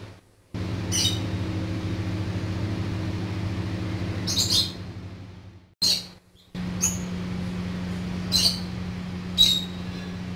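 Birds chirping in short, high calls every second or two over a steady low hum. The whole sound cuts out abruptly twice, briefly at the start and again about six seconds in.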